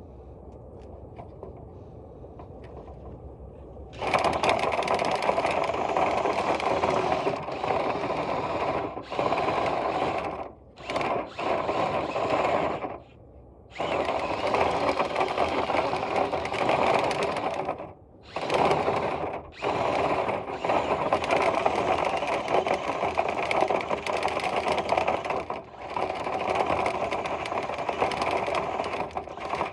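Power tool spinning a rotary brush through a dryer vent duct, a loud rattling whirr run in stop-start stretches with short pauses. It starts about four seconds in, after a low rumble.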